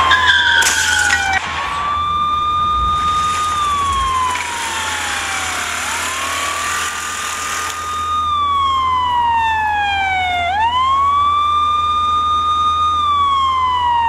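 Wailing siren: a tone that rises quickly, holds for a second or two, then slides slowly down, repeating about every four to five seconds.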